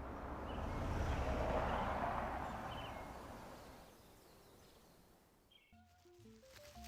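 Outdoor background noise with a low hum that swells and then fades, with a few faint bird chirps; music starts near the end.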